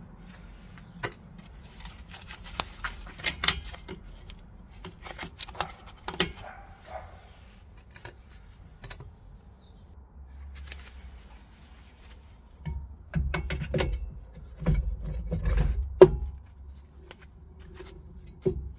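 Metallic clinks and clicks of a Nissan Micra K12's rear drum brake parts being handled and fitted. In the second half come heavier knocks and scraping as the brake drum is pushed on over the shoes, ending in a sharp clank.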